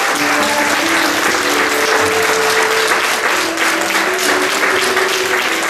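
An audience applauding, many hands clapping densely and steadily, with music playing underneath in held notes.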